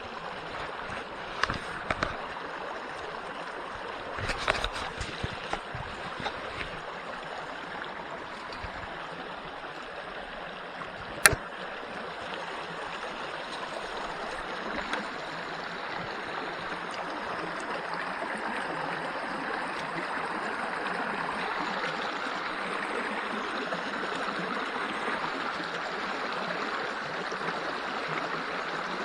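Small creek running and babbling over riffles, a steady rush of water that grows a little louder over the second half. A few sharp clicks or knocks sound in the first dozen seconds, the sharpest about eleven seconds in.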